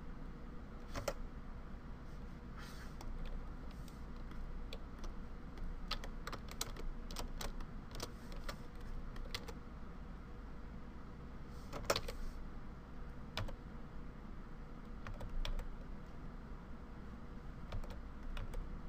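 Irregular clicking of a computer keyboard and mouse, single clicks and short clusters, the sharpest about twelve seconds in, over a faint steady low hum.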